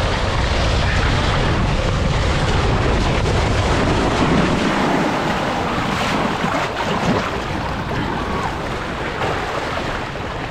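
A rider's foam mat rushing down a wavy mat racer water slide, with wind buffeting the microphone and a low rumble through the first half. About halfway through it gives way to the hiss of water spraying up as the mat skims into the flat splash-out lane, easing off near the end.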